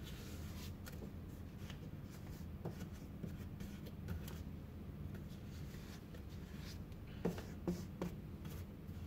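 Faint handling sounds of hands working at the base of a plastic traffic cone set on a tin can, fixing it with strips of adhesive tape: light rustling and rubbing, with three small knocks close together near the end.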